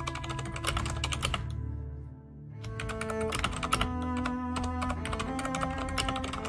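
Typing on a computer keyboard in quick runs of keystrokes, with a short pause about two seconds in, over soft background music with held notes.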